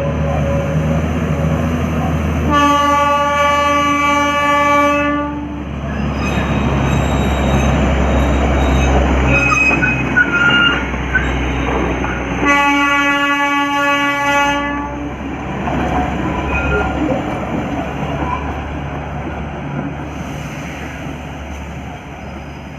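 Darjeeling Himalayan Railway toy train running, sounding two long blasts of about two and a half seconds each, one early and one about halfway through. The running noise grows fainter near the end.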